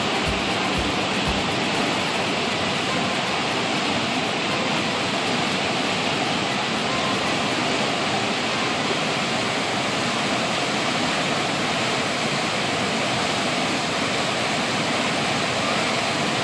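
Swollen, muddy water rushing and churning in whitewater, a steady, unbroken rush of water being let out to keep it from overflowing.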